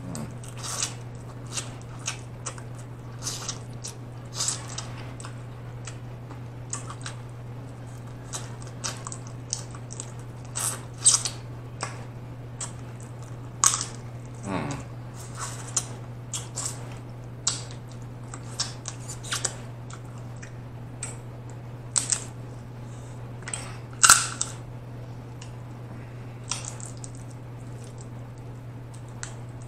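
Close-up eating of snow crab legs: irregular crunches and cracks of shell being bitten and snapped apart by hand, with chewing between them. A steady low hum runs underneath.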